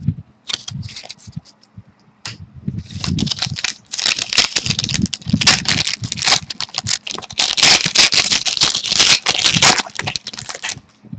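Trading cards and their packaging being handled: a run of rustling and crackling, a few scattered clicks at first, then dense and continuous from about four seconds in, stopping just before the end.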